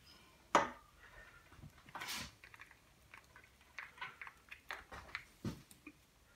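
Faint scattered clicks, taps and small knocks of bottles and tools being handled at a workbench, with a short hissing rush about two seconds in.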